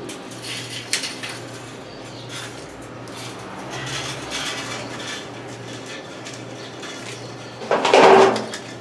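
Metal wire rustling, scraping and lightly clinking as it is wound and tied around a wooden post to bind a statue armature. About eight seconds in comes a short, louder metallic clatter.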